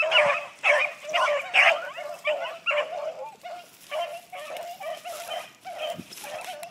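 A pack of beagles baying together, many overlapping cries. The cries are close and loud for the first few seconds, then thinner and fainter toward the end.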